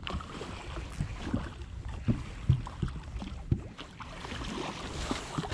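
A hooked striped bass splashing at the surface while it is played on the rod, with irregular knocks and handling noise from the boat and some wind on the microphone.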